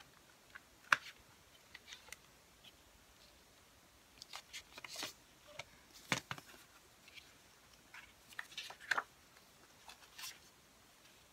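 Scattered clicks and clacks of a plastic CD jewel case being opened and handled, with brief rustles of paper inserts being slid out.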